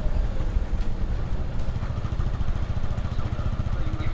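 Steady low rumble of a vehicle under way, engine and road noise heard from on board the moving vehicle.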